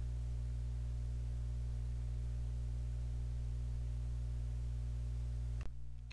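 Steady low electrical hum with faint hiss, dropping off sharply near the end.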